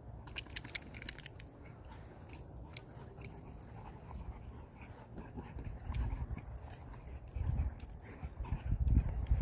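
A Caucasian Ovcharka and other dogs playing on grass. A run of sharp clicks comes about half a second in, and low thumping bursts grow louder over the last few seconds.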